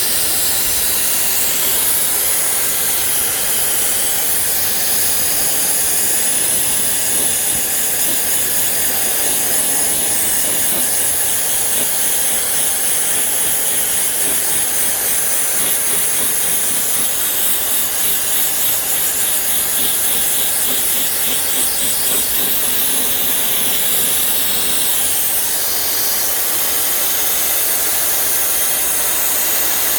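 Steady, loud hiss of a high-pressure cleaning jet blasting a car's radiator, AC condenser and intercooler cores.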